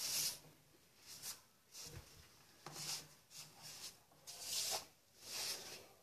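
A hand wiping and scraping caked mud and grit off the inside of a washing machine's metal outer tub, in short rasping strokes about once a second.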